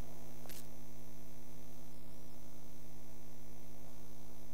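Steady electrical mains hum with a faint hiss from the hall's microphone and sound system, with a single faint click about half a second in.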